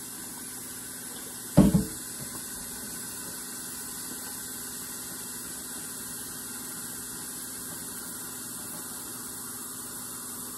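One hard knock about one and a half seconds in, a pot or dish set down at the kitchen sink. After it there is only a steady low hiss with a faint hum.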